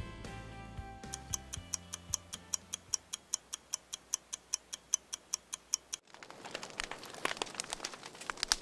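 Background music fading out, then a ticking-clock sound effect of rapid, even ticks, about five a second, for roughly five seconds. About six seconds in it cuts to a hissy jangle of coins dropping and clinking, in irregular clicks.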